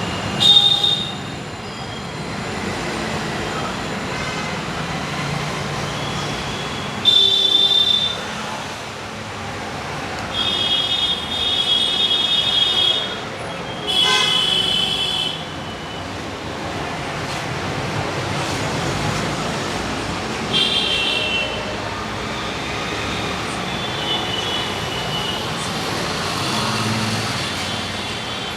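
Street traffic with vehicle horns honking again and again: about half a dozen high-pitched honks, some lasting a second or two, over a steady hum of traffic.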